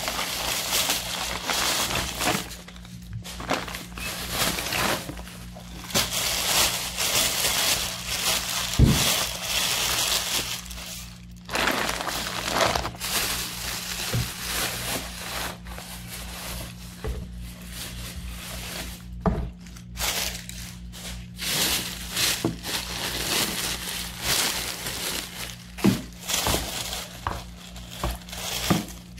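Thin plastic grocery bags rustling and crinkling in irregular spells as shopping is handled and unpacked. There are a few light knocks, and a low steady hum runs underneath.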